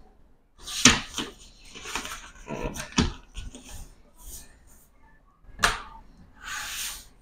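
Paper and a pen being handled on a tabletop: a few sharp knocks and taps, the loudest about a second in, with rustling and a short brushing sound near the end.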